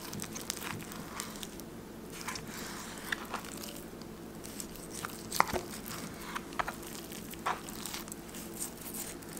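Scattered small crunching, tearing and wet clicking sounds of raw raccoon meat and fat being handled and cut, over a steady low hum.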